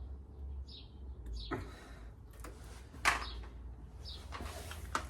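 Quiet handling noise: faint small scrapes and rustles over a low steady hum, with a single sharp knock about three seconds in.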